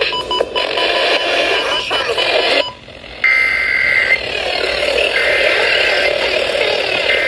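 Radio music cuts off about two and a half seconds in. Three Emergency Alert System SAME header data bursts follow, each about a second long and a second apart, over a steady hiss: the digital start of a broadcast alert.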